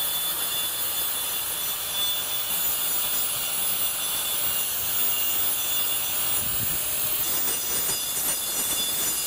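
Electric angle grinder with a diamond disc cutting into brick: a steady high-pitched whine with gritty cutting noise, held without a break.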